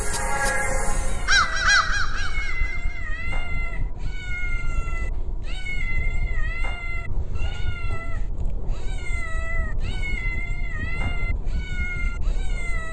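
A Maine Coon kitten meowing again and again, about ten high-pitched meows in quick succession, each a second or so long, rising at the start and falling away at the end.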